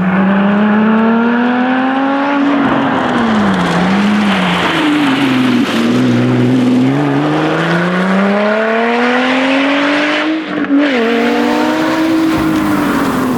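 2016 Lotus Exige S's supercharged V6 under hard driving. The engine note climbs through the revs, drops as the driver lifts off, and climbs again for a long pull, with a brief dip about ten and a half seconds in before rising once more. It falls away near the end.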